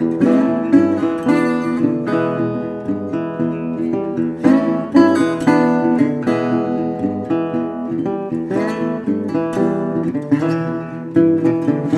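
Intro music: a strummed and picked acoustic guitar tune.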